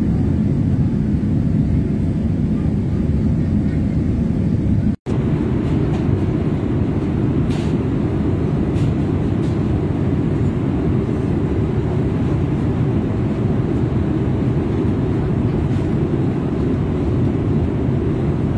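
Steady, loud, low rumble of airliner cabin noise from the engines and air, with a split-second dropout about five seconds in.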